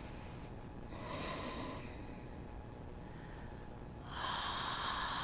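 A person breathing deeply and audibly through the nose while holding a yoga pose: one breath about a second in, then a longer, louder breath from about four seconds in.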